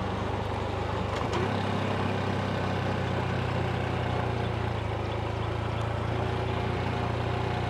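Honda CT125 motorcycle's single-cylinder engine running steadily at an even speed while riding along.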